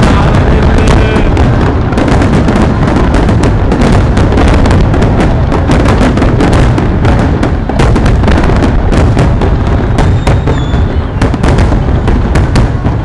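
Fireworks display in a dense barrage: rapid overlapping cracks and bangs over a continuous low rumble of booms, thinning slightly near the end.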